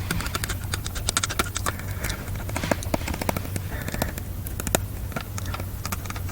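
A cold-weather sound effect of dense, irregular clicks over a steady low rumble.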